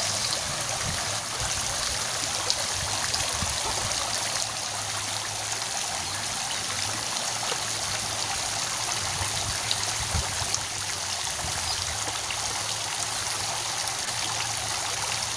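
Steady rush of flowing river water, an even hiss with no change in level, over a faint low hum.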